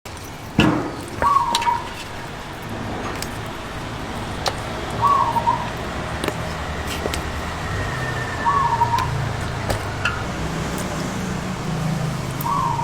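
A bird giving a short whistled call four times, about every three to four seconds, over steady background noise with scattered clicks.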